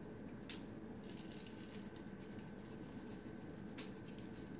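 Cinnamon topping sprinkled from a plastic measuring cup onto baked cereal crumbs on a lined sheet pan: faint, scattered pattering with a couple of short, sharp rustles, one about half a second in and one near the end.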